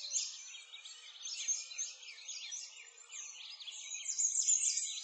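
Many birds chirping at once, quick high chirps overlapping with no break, a little louder near the end.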